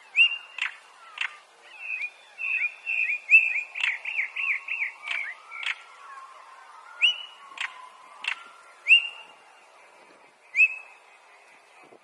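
European stonechat calling: clear whistled 'hweet' notes mixed with hard, stone-knocking 'tak' clicks. A quick run of looping warbled notes comes a few seconds in.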